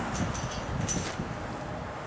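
Wind buffeting the microphone outdoors, an uneven low rumble, with a few faint high ticks.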